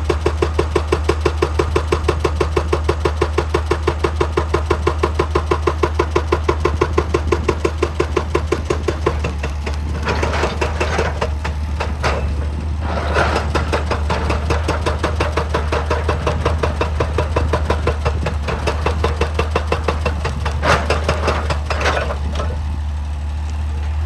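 Excavator diesel engine running under a fast, even hammering of about six blows a second, typical of a hydraulic breaker on rock. The hammering stops about nine seconds in, and irregular scrapes and knocks of rock follow over the engine's steady drone.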